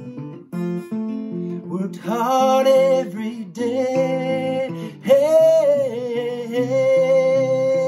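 Acoustic guitar being played, with a man singing over it. The voice comes in about two seconds in and holds long notes near the end.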